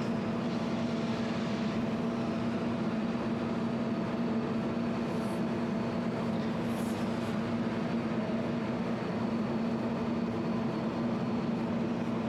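A 200-watt jewelry laser welding machine running with a steady, even hum from its cooling unit, with a couple of faint, brief high hisses about five and seven seconds in.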